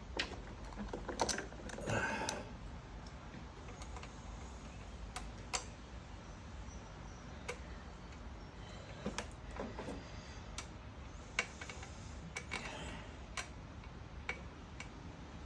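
Scattered light clicks, taps and clinks of hand tools and small metal parts as a lawnmower carburetor is unbolted and worked loose, over a faint steady low hum.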